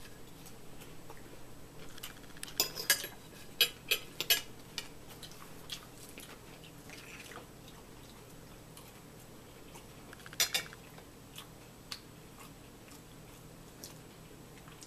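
Forks clinking and scraping on plates during a meal, a cluster of sharp clicks a few seconds in and another about ten seconds in.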